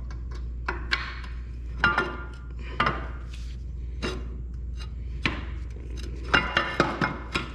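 Scattered metal clinks and knocks as tools and parts are worked on a Honda CB750 engine to force a part into line, the knocks coming quicker near the end. A steady low hum runs underneath.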